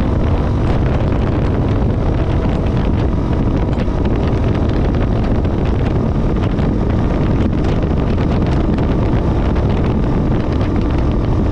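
Wind buffeting the microphone over the steady running of a 2017 KTM 450 EXC Six Days's single-cylinder four-stroke engine under way, with scattered small ticks.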